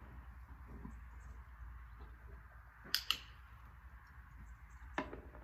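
A hand-held training clicker clicks twice in quick succession about three seconds in, the click that marks the horse raising its head in clicker training; a single sharp knock follows about two seconds later, over a low steady rumble.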